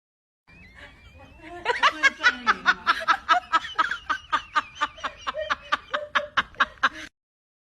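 A person laughing in a long run of quick, even bursts, about four or five a second, that cuts off suddenly near the end.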